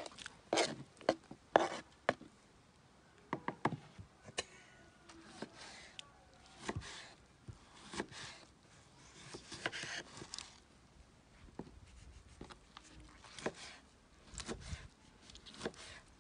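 A knife chopping fresh vegetables on a cutting board, in irregular knocks that are loudest in the first two seconds.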